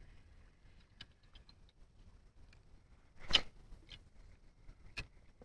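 Spinning rod and reel being handled and cast: scattered light clicks from the reel, one louder brief swish about three seconds in as the rod is swung, and a single sharp click near the end.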